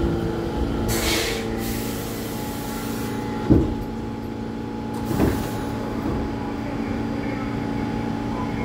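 R46 subway train standing at the platform with its equipment humming steadily; a short burst of air hiss about a second in, then a loud thud and a softer one a couple of seconds later as the doors slide open.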